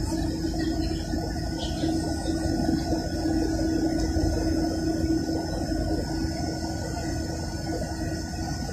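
Jet airliner engine and airflow noise heard inside the cabin during the climb: a steady rumble with a steady hum.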